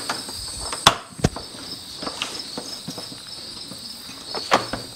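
Light metal clicks and clinks of a stamped steel bottom bracket being worked into the notches on the edge of a steel garage door panel: one sharper click about a second in and a few more near the end. A faint steady high-pitched hum sounds behind.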